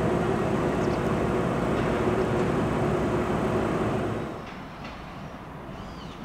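ÖBB Intercity train running along the rails through the station, a steady loud rumble that falls away about four seconds in.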